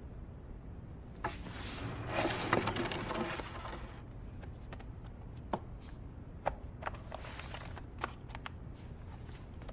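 Books being handled on a wooden bookshelf: a stretch of rustling and sliding, then scattered light knocks and taps as books are moved and pulled out.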